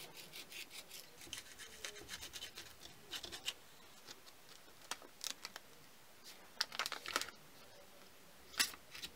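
Paper masking tape being cut with a snap-off utility knife and pressed and smoothed down by hand. There is a run of quick, faint scratchy clicks over the first few seconds, then scattered paper crackles.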